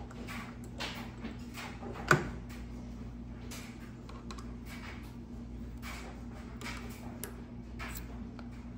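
Light metallic clicks and taps of hand-tool handling as a chuck key is fitted into a keyed drill chuck to loosen and remove a center drill. A sharper click comes about two seconds in, over a steady low hum.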